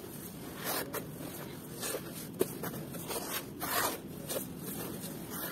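Hands raking and crumbling dry, crumbly red dirt in a plastic tub: short gritty swishes and rustles at an uneven pace, with one sharp tick about halfway through.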